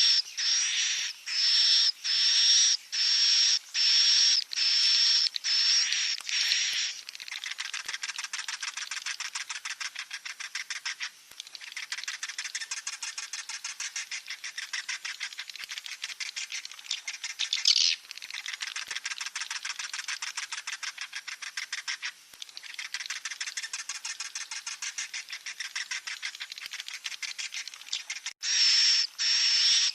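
Swiftlet chicks calling: rasping, hissy calls repeated about twice a second, giving way after about seven seconds to a fast buzzy chatter of rapid clicks that runs most of the time with two short breaks, before the slower calls return near the end.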